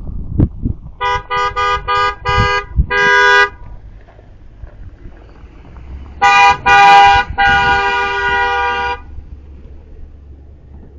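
Car horns honking from passing vehicles: a quick run of about six short toots about a second in, then a pause, then two short blasts and one held for about a second and a half.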